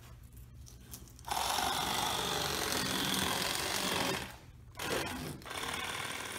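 Electric fillet knife buzzing as it cuts through a striped bass, running steadily for about three seconds, stopping briefly, then running again more quietly near the end.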